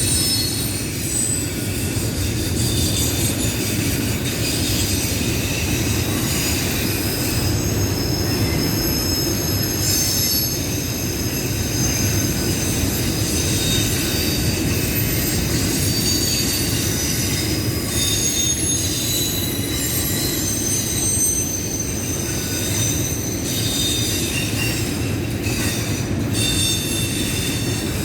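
Train rolling along the track with a steady low rumble, its steel wheels squealing against the rails in several high, shifting tones.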